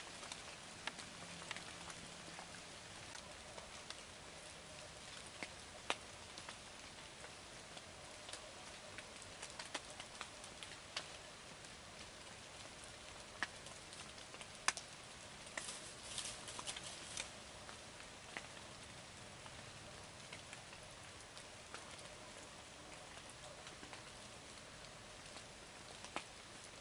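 Light rain falling, a faint steady patter with scattered sharp ticks of single drops, and a brief flurry of ticks about sixteen seconds in.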